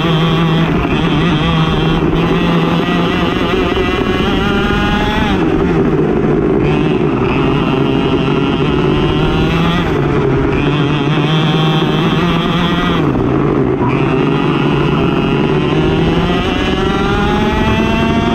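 Racing kart engine at full race pace, its revs climbing steadily and then dropping sharply about five, ten and thirteen seconds in before climbing again.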